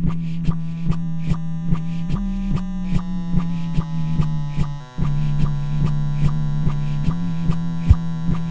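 Layered music played live on a loop station: a sustained bass line under a steady, even beat with crisp hi-hat-like ticks. The loop drops out briefly just before the midpoint, then comes straight back in.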